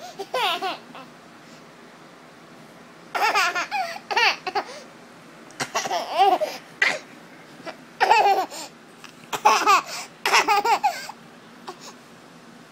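A baby laughing in repeated bouts of high, wavering laughter, with short quiet gaps between them.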